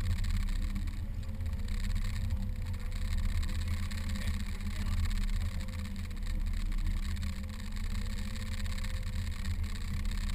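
Boat engine running steadily: a low rumble with a faint wavering whine above it.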